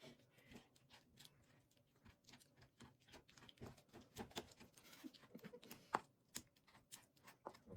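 Faint, irregular taps and scrapes of a pestle grinding food in a bowl, a few sharper knocks among them.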